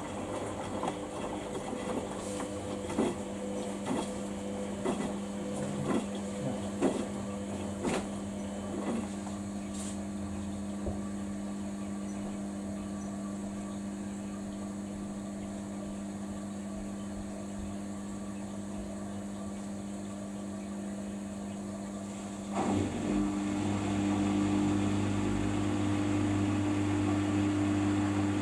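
Samsung washing machine running a quick wash cycle: a steady motor hum with several sharp knocks in the first ten seconds, then about 23 seconds in the hum grows louder and stays up.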